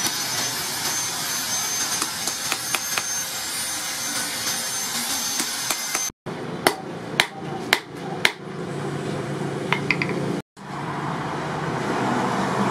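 Steady rushing noise of a forge air blower with a high motor whine that climbs near the start and then holds. A hand hammer strikes rebar on a steel anvil now and then, with a quick run of sharp blows after the middle; the sound cuts out abruptly twice.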